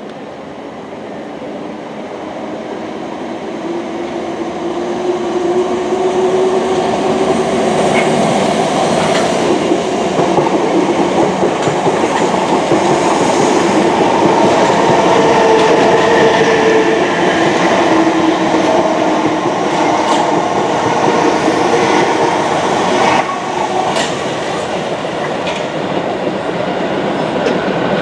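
A train drawing near and running past, growing louder over the first six seconds and then staying loud. A whine in it rises and falls, and the wheels give a few sharp clicks over rail joints.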